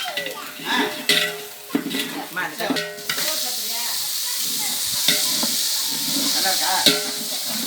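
Curry ingredients sizzling in hot oil in a cooking pot while being stirred, with scrapes and knocks of the stirring spoon against the pot. About three seconds in, the sizzle settles into a steady hiss, broken by a couple of sharp clicks.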